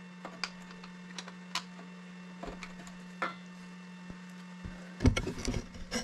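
Light clicks and taps from diesel heater parts and fittings being handled, with a denser cluster of knocks about five seconds in, over a steady low hum.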